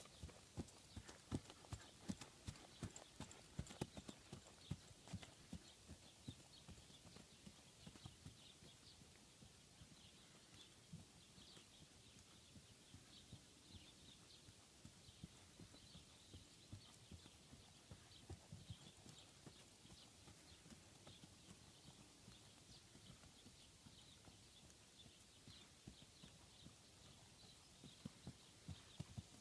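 Hoofbeats of a barefoot horse on firm, uneven grass: faint, dull knocks, clearest at the start while the horse is close, fading as it moves away, and growing louder again near the end as it comes back.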